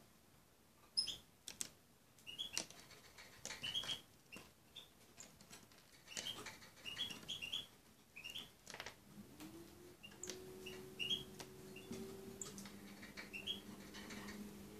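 Small finch pecking berries from a glass bowl: scattered sharp clicks of its beak against the glass and sill, mixed with many short, high chirps. A low steady hum comes in about halfway through.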